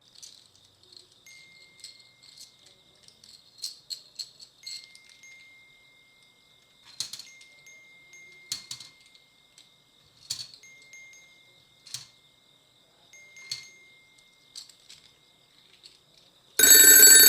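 A faint, steady high-pitched whine with scattered light clicks and short beeping tones. About sixteen and a half seconds in, a loud ringing of several held tones starts suddenly.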